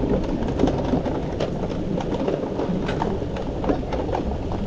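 Riding a bicycle on a trail: a steady low rumble of wind and tyres on the microphone, with scattered clicks and rattles.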